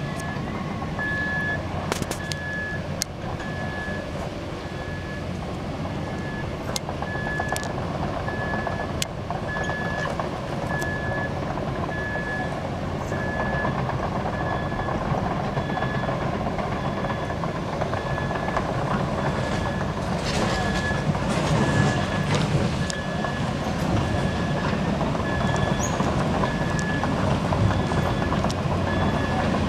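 Volvo 20-tonne excavator's diesel engine running under load as the machine moves, with sharp metallic clanks and a travel alarm beeping steadily about once a second. The engine grows louder in the second half.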